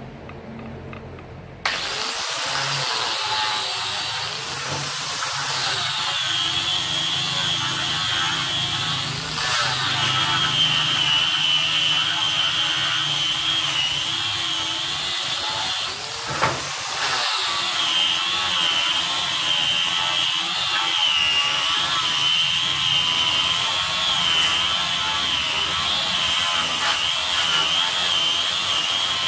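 Angle grinder with a sanding disc switching on about two seconds in and sanding a wooden door frame. Its high whine wavers in pitch throughout, with a brief rise about halfway through.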